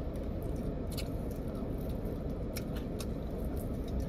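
Steady low rumble inside a car, with a few faint sharp clicks of someone eating chicken wings.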